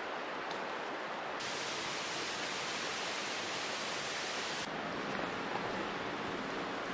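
Steady rushing outdoor noise, with no distinct events. A brighter hiss cuts in abruptly about a second and a half in and cuts out just as abruptly about three seconds later.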